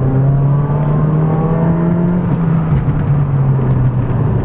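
Ford Focus ZX3's four-cylinder engine pulling under acceleration, heard from inside the cabin over road noise; its note climbs slowly, then drops a little under three seconds in and holds steady.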